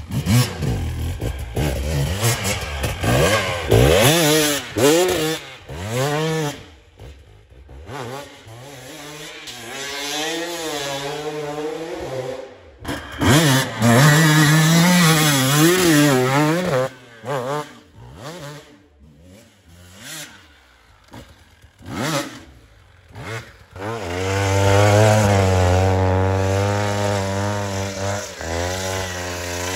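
Enduro motorcycle engine revving up and down hard as it is ridden through snow, with a few abrupt breaks. Near the end it holds a long high-rev run as the rear wheel spins in deep snow.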